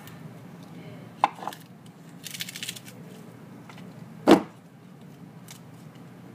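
Food-prep handling sounds: a couple of light knocks just over a second in, a short crisp rustle of romaine lettuce leaves being torn about two and a half seconds in, and a single loud thump on the counter a little after four seconds.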